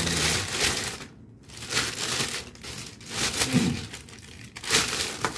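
Thin plastic packaging bag crinkling and rustling as it is handled around a black leather sling bag, in several bursts with short pauses between.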